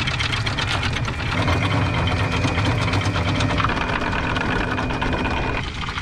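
Electric anchor windlass motor running steadily as it pays out anchor chain, over the boat's engine idling; the windlass cuts off suddenly about five and a half seconds in.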